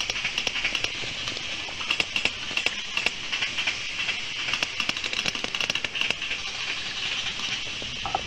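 Recording of sperm whales exchanging codas: stereotyped patterns of rapid clicks from several whales, overlapping, over a steady hiss of sea noise. Codas are taken to be the whales' social communication signals.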